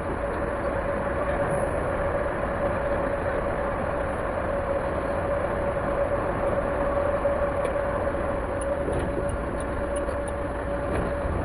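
Road noise inside a moving car: a steady drone of tyres and engine with a low rumble and a constant mid-pitched hum.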